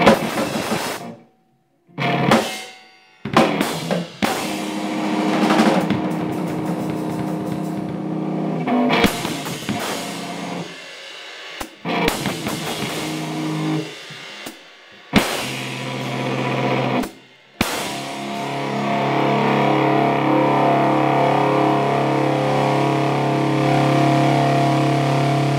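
Live band with a drum kit and cymbals playing the end of a song: the music cuts off abruptly several times, then from about two-thirds of the way in a final chord is held and left ringing.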